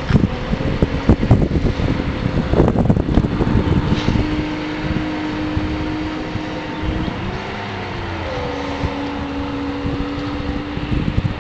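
Outboard motor of a bass boat running at speed, a steady drone that wavers and settles a little lower in pitch about eight seconds in. Wind buffets the microphone with low rumbles in the first few seconds.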